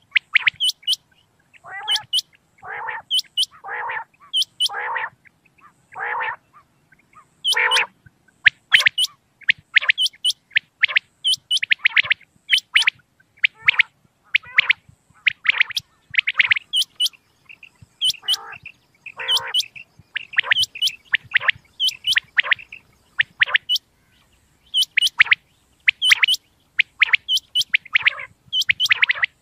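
Common quail (batair) calling over and over: short, sharp, high calls in quick runs, joined by lower, rougher calls a few seconds in and again about two-thirds through.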